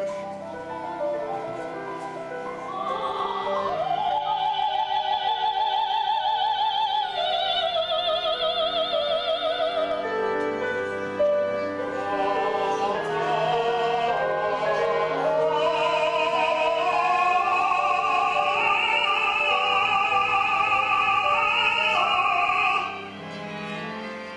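Live operatic singing: a high soprano voice holds long notes with wide vibrato over a small chamber ensemble, and stops shortly before the end.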